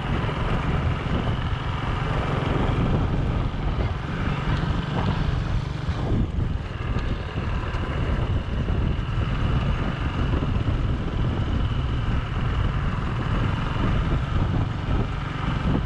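Motorcycle engine running steadily while riding, heard from on the bike, with a heavy low rumble of wind on the microphone.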